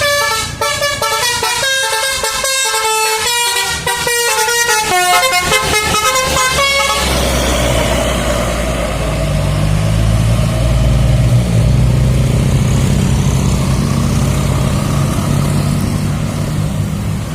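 An Indonesian bus's basuri 'telolet' multi-tone horn playing a quick stepping melody for about seven seconds. Then the bus's engine runs loud and steady as it pulls hard.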